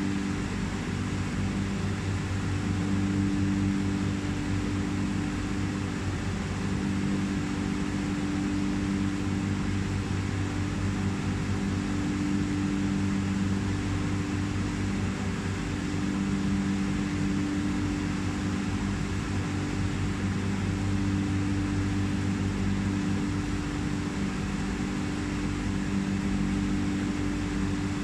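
Steady low electrical hum of aquarium pumps and filtration over a soft hiss, its tones slowly swelling and fading every few seconds.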